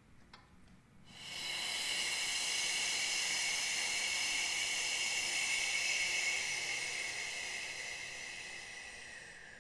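A woman's long 'shh' exhale, a steady hiss that starts about a second in, lasts some eight seconds and slowly fades near the end. It is one sounded out-breath of a yoga breathing practice.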